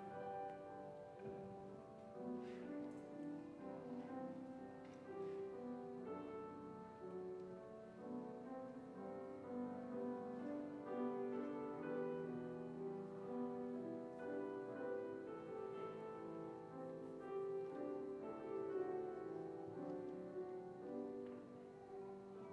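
Slow instrumental piano music, long held chords changing every second or two.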